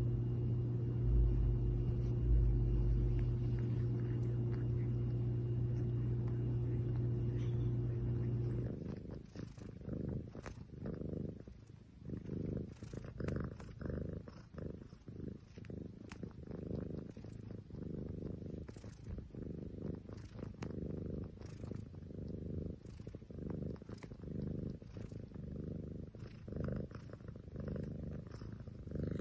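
Tabby cat purring close to the microphone: a steady purr for the first several seconds, then after a change about nine seconds in, a softer purr rising and falling over and over with faint clicks as the cat licks its paw.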